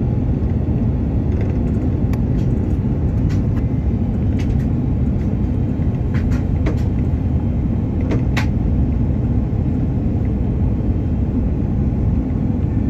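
Steady low roar of an Airbus A330-300's engines and rushing air, heard inside the cabin at a window seat beside the engine on the descent to land. A few faint clicks or taps come through above it.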